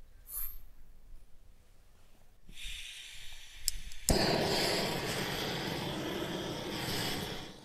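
Hose-fed gas torch from an LPG cylinder: gas begins hissing about two and a half seconds in, then after a click it lights with a sharp pop a little after four seconds and burns with a steady rushing noise that drops away at the very end.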